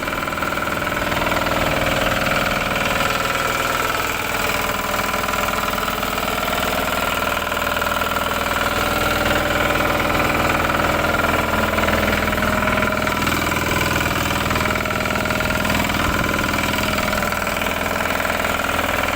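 An engine running steadily at low speed, its pitch wavering slightly without a break.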